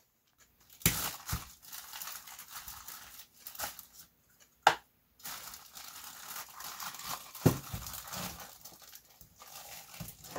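Plastic bag of stacked clear plastic mixing cups crinkling and rustling as hands open it and work a cup out, with a few sharp clicks and knocks.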